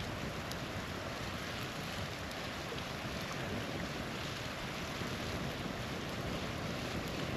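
Small waterfall's steady rush of falling water, with an occasional faint crackle from a campfire.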